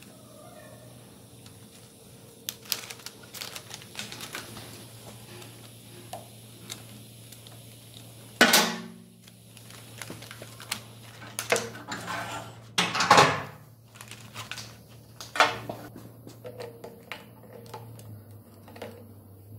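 Steel parts and tools clinking and clanking while a ZF 16S151 sixteen-speed truck gearbox is taken apart: scattered light clicks and knocks, with three louder clanks spread through.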